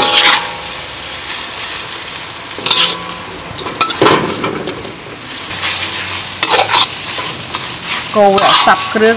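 Vermicelli noodles sizzling in a hot wok as they are tossed and stirred, with a steady frying hiss. Utensils scrape and knock against the wok every second or two, most busily near the end.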